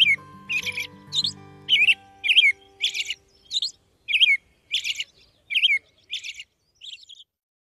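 American robin calling: a rapid string of short, clear high notes, two to three a second, thinning out and getting quieter toward the end.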